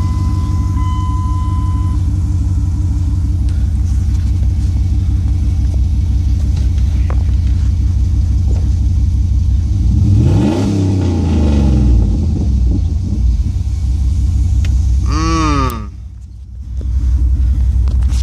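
Dodge Durango's 4.7-litre V8 with a cold air intake idling steadily, revved once about ten seconds in, its pitch rising and falling back over about two seconds.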